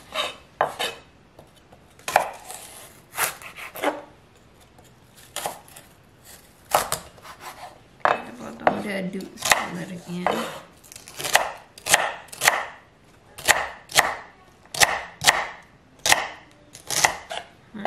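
Chef's knife cutting celery on a wooden cutting board: scattered single cuts at first as the stalks are split lengthwise, then steady dicing at about two knife strikes a second in the second half.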